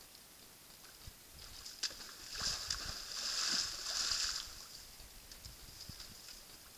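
Bull elk thrashing his head and antlers in a muddy wallow: a burst of splashing and slopping mud about two seconds long, starting a little over two seconds in, with a few lighter splashes around it.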